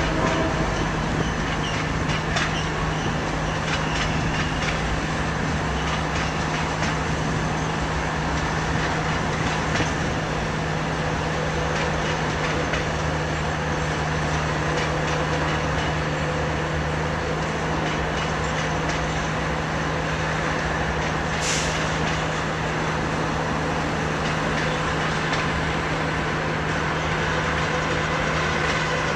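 Freight train of tank cars and covered hoppers rolling past at steady speed: a continuous rumble of wheels on rail with a low steady hum, and a single sharp click about two-thirds of the way through.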